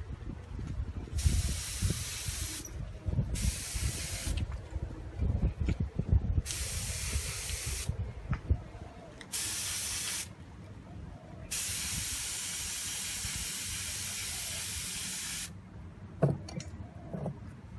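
Gravity-feed air spray gun hissing in five separate bursts, the last and longest lasting about four seconds, with two short knocks near the end.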